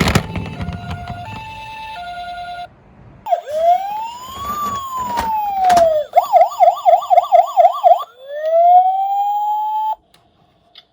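Electronic siren sounds from a toy emergency-vehicle minicar: a few short beeps at stepped pitches, then a slow wail rising and falling, a fast warbling yelp, and a last rising wail that cuts off suddenly. A few clicks sound during the first wail.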